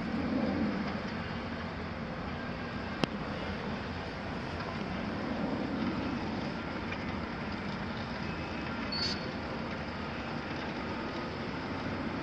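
Diesel engine of a Volvo crawler excavator running as the machine swings its boom round toward a sand pile, the engine noise swelling under load, with other earthmoving machines running in the background. A single sharp click about three seconds in and a brief high squeak near nine seconds.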